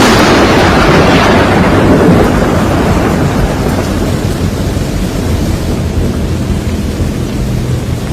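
A thunderclap cracks and rolls away, fading over about three seconds into a steady rumble of storm rain and wind.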